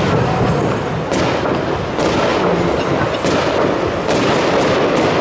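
Aerial fireworks going off in a rapid, continuous barrage: many overlapping bangs, a few each second, with no pause.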